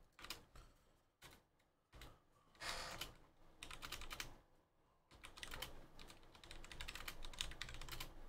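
Faint rapid light clicks in short runs with pauses, turning into a steady dense run of clicking from about five seconds in.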